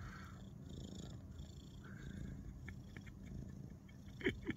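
Silver tabby kitten purring steadily, a faint low rumble. Two short clicks come near the end.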